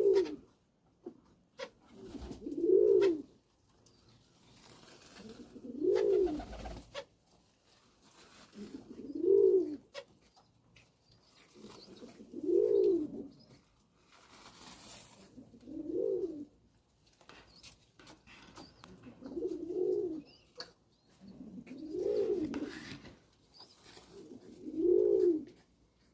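A pigeon cooing, one low rising-and-falling coo about every three seconds, nine in all, with a few faint clicks between them.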